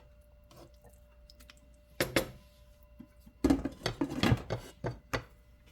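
Kitchenware clattering: a knock about two seconds in, then a quick run of knocks and rattles of pots and utensils being handled.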